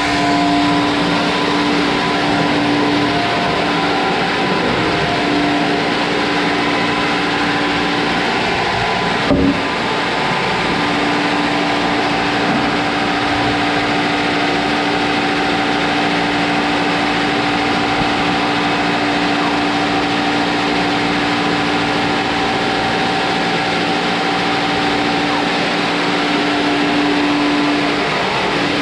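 Sawmill machinery running steadily and loudly, a constant din with a few steady humming tones; one sharp knock about nine seconds in.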